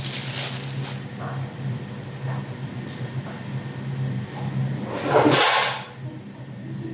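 Plastic grocery bags rustling as they are handled, over a steady low hum. About five seconds in comes a louder, short burst of noise.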